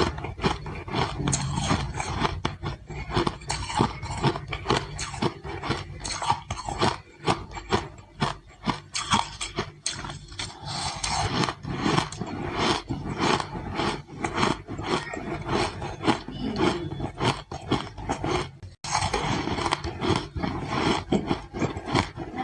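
Ice being crunched and chewed close to the microphone: a dense, continuous run of crisp cracks and crunches, with one short break about three quarters of the way through.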